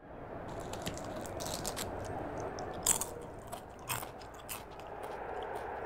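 A person crunching a snack, with many sharp, crisp crunches, two of them louder about three and four seconds in, over steady background noise.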